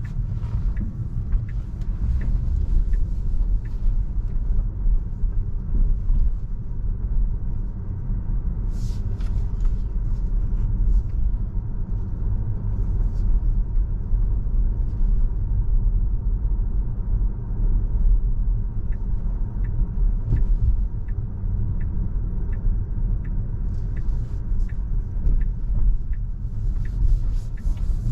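Road and tyre noise heard inside a Tesla's electric car cabin while driving: a steady low rumble with no engine note. In the last third a light, regular ticking comes in, about three ticks every two seconds.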